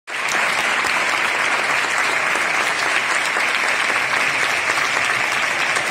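A large seated audience applauding, dense, steady clapping that cuts in abruptly out of silence.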